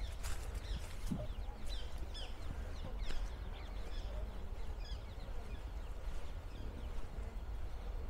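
Small birds calling in short, repeated downward chirps over the crunch of footsteps on a woodland path, with a steady low rumble underneath.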